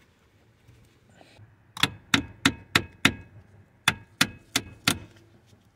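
Sharp metallic taps, about three a second in two runs of five and four with a short pause between: a metal socket extension knocking the transmission shift cable's end onto its pin on the steering column until it seats.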